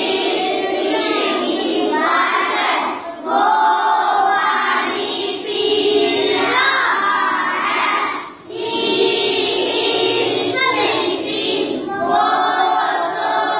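A class of children reciting aloud in unison, a sing-song group chant in phrases of two to three seconds with short breaks between.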